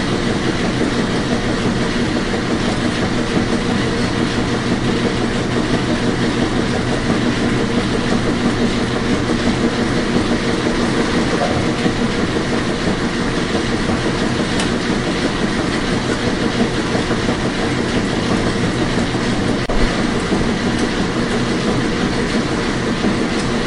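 Washing machine running: a steady whirring noise with a constant low hum, even throughout.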